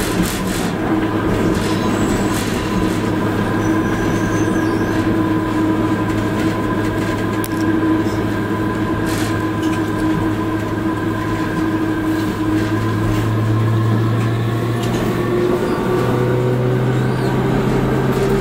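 Milan M5 driverless metro train running through a tunnel, heard from its front end: a steady rumble of wheels on rail under a constant electric motor whine. The whine steps up in pitch twice in the last third.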